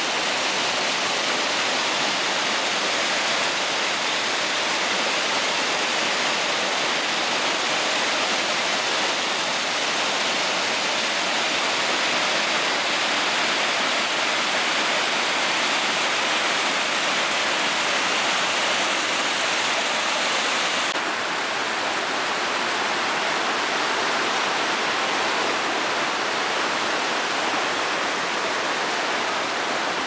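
Mountain stream rushing over boulders and small cascades: a steady, loud rush of water, slightly softer and duller from about two-thirds of the way through.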